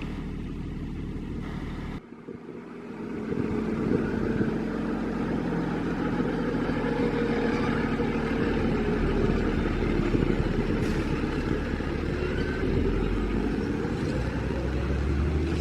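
A motor vehicle's engine running steadily. About two seconds in the sound drops out briefly, then comes back louder and heavier.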